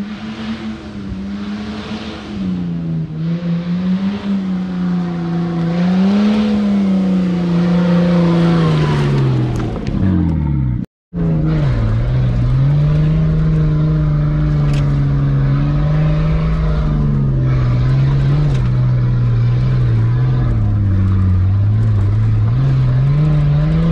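The swapped-in Nissan RB25 turbo straight-six in a Nissan Patrol Y60 running under load on a dirt trail, its pitch rising and falling with the throttle. The sound cuts out for an instant about eleven seconds in, then the engine holds a steadier, somewhat lower pitch.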